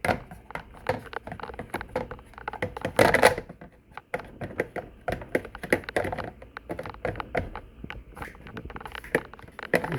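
Irregular clicks and knocks of the coffee machine's plastic parts being handled and fitted back into place, with a louder clatter about three seconds in.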